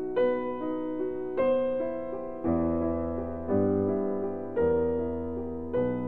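Background piano music: slow, gentle chords, a new one struck about once a second and each fading away.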